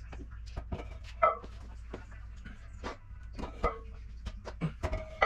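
Clanks and knocks of iron weight plates and a steel hack squat machine being handled, a string of sharp metallic hits, some with a short ring, the loudest about a second in and just before the end. A steady low hum runs underneath.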